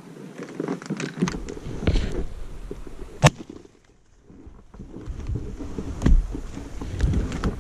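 Shotgun fired at ducks: a sharp report about three seconds in and another loud report about three seconds later, amid rustling of brush and gear as the hunter swings on the bird.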